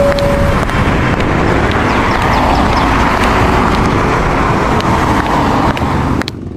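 Steady vehicle noise, an even rush of sound without speech, that cuts off suddenly near the end.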